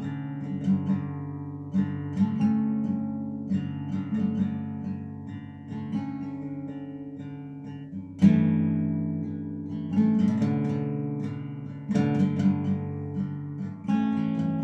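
Acoustic guitar music: chords struck and left to ring, a new one about every two seconds, with the strongest strike just past the middle.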